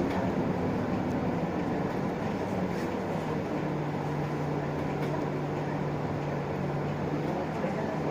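Interior running sound of an Isuzu Erga LV290 city bus: the diesel engine and drivetrain hum steadily under road noise. About three and a half seconds in, the engine note changes to a lower steady drone.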